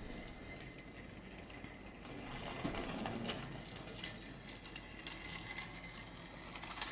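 Small electric motor of a toy Thomas train running steadily along its toy track, with a few clicks and rattles about three seconds in.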